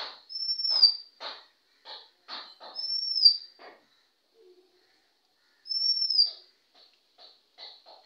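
Male Oriental magpie-robin singing: three loud, clear whistled notes about three seconds apart, each rising then falling, with short scratchy notes between them.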